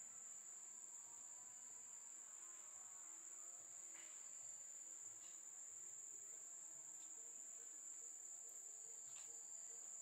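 Faint, steady high-pitched drone of insects, one unbroken shrill tone.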